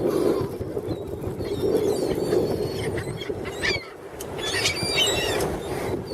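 A flock of seagulls squealing with many short, high calls, most of them about four and a half to five and a half seconds in, over a steady rushing noise.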